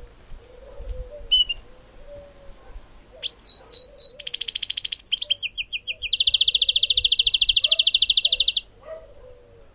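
Caged goldfinch × canary hybrid singing: a short high call about a second in, then a few quick falling notes that run into fast trills, which go on for several seconds and stop abruptly near the end.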